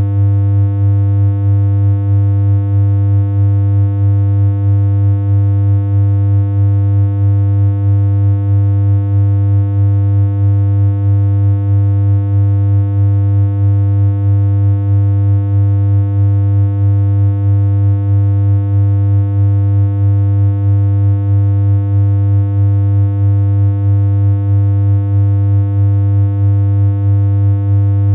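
Steady computer-synthesized hum: one low, unchanging tone with a stack of buzzy overtones and a slight regular wobble in loudness.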